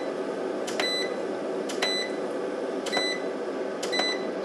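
Front-panel buttons of a Voltacon off-grid solar inverter pressed four times, about once a second, each press a click followed by a short high key beep as the display steps to its next page. A steady low hum runs underneath.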